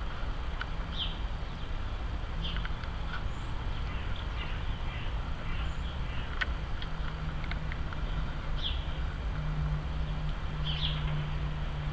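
Distant jet airliner flying overhead: a low, steady rumble with a droning tone that grows slightly stronger near the end. Small birds chirp briefly several times, with a few sharp ticks.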